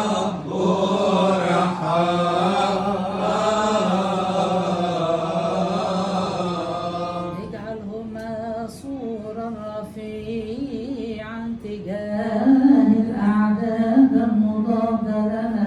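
Coptic Orthodox liturgical chant. Several voices sing a long, melismatic response over a steady low held note. About halfway through it thins to a single voice singing an ornamented, wavering melody over the same held note.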